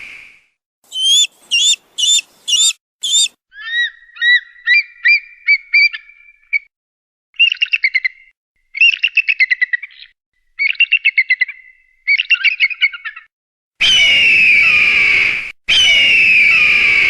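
Raptor calls: five sharp, high whistled notes, then runs of quick chattering calls, and near the end two long, loud, descending screams.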